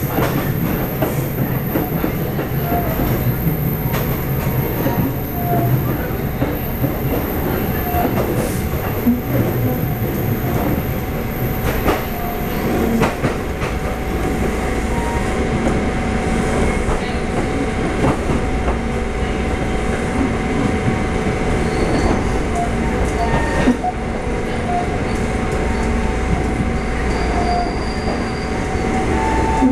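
Taiwan Railway EMU400 electric multiple unit running, heard from inside the car: a steady rumble of wheels on rail with scattered clicks over rail joints and brief wheel squeals.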